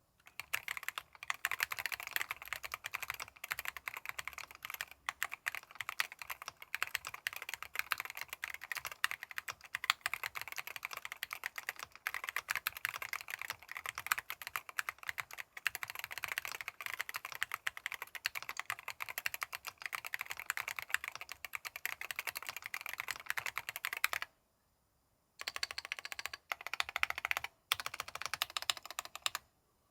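Typing on a gasket-mounted aluminium Keychron Q14 Pro mechanical keyboard fitted with Keychron K Pro Red linear switches and KSA keycaps: a rapid, continuous run of keystrokes. Near the end the typing stops for about a second, then resumes briefly.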